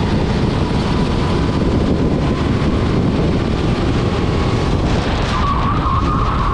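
Rental kart engine running at speed, with a steady engine note that gets stronger and slightly higher near the end. Heavy wind buffeting on the microphone mixes with the engine.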